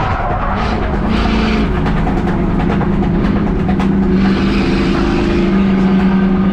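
Race car engine running hard at steady high revs on track, its pitch stepping up slightly a couple of times.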